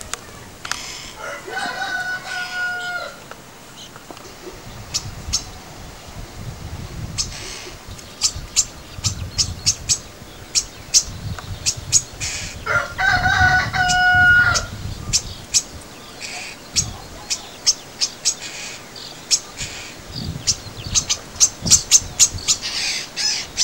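Common starlings at a nest box giving many short, sharp high chirps and clicks, thickening towards the end. A rooster crows twice in the background, about a second and a half in and again about 13 seconds in.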